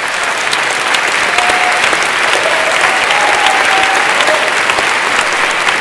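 Audience applauding in a hall, a dense steady clapping that swells a little in the first second and then holds.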